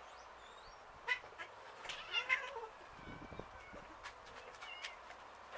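Domestic cats meowing: a few short meows clustered about two seconds in, with sharp clicks and taps scattered around them.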